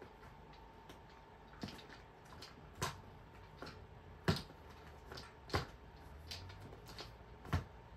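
Glass nail polish bottles clicking against one another as they are picked through and moved, five short sharp clicks spaced irregularly over a quiet background.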